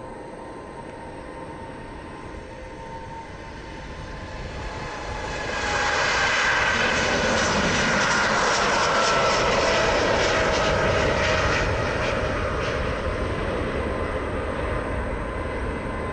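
Twin turbofan engines of an Airbus A320-family airliner at takeoff thrust. The jet noise swells over the first few seconds as the aircraft rolls past and lifts off, is loudest in the middle with a whine falling in pitch, then eases off as it climbs away.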